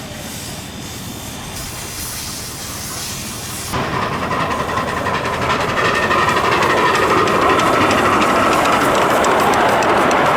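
Miniature steam locomotive on a miniature railway running with steam hissing. About four seconds in the sound suddenly gets louder and keeps building.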